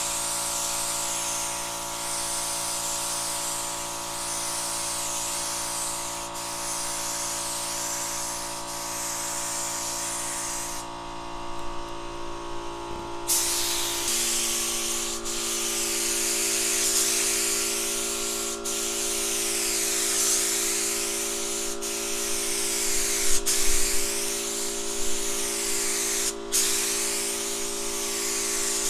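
Compressed-air gravity-feed paint spray gun hissing in long passes as base coat is laid onto a car body, with short breaks where the trigger is let off and a pause of about two seconds near the middle. A steady hum runs underneath.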